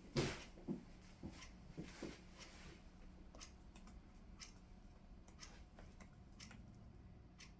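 Cockatiels pecking and nibbling at a treat: scattered small clicks and taps of beaks, with a few louder knocks in the first couple of seconds, then sparser, fainter ticks.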